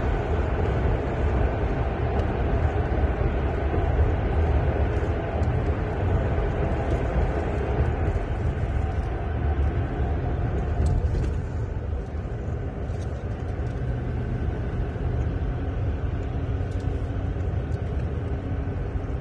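Steady road and engine noise of a moving car, heard from inside the cabin, easing slightly a little past halfway.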